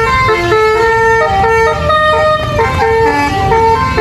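A bus's multi-note Basuri 'telolet' air horn playing a quick tune, one short held note straight after another, with a low engine and traffic rumble underneath.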